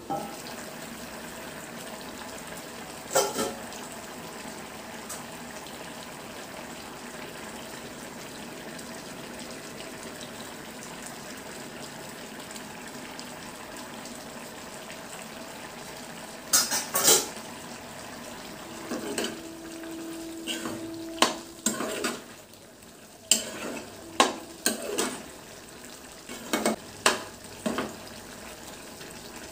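A pan of chickpea and potato curry sizzling and bubbling steadily on the stove. Near the start there is a knock, and from about halfway on a metal spoon clatters and scrapes repeatedly against the pan as the curry is stirred.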